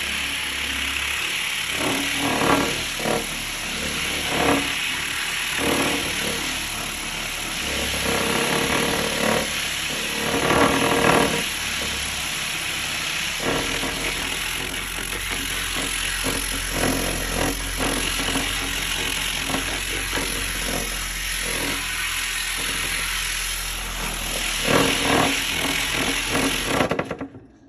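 Electric car buffer fitted with a 10-inch sanding disc, running steadily as it sands plywood; the motor stops abruptly near the end.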